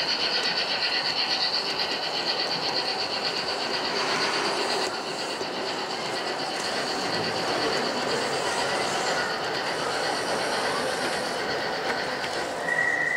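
Gauge 1 (1:32 scale) model train running on an exhibition layout: a steady, slightly pulsing high-pitched whine over running noise, fading out near the end. A short high tone starts just before the end.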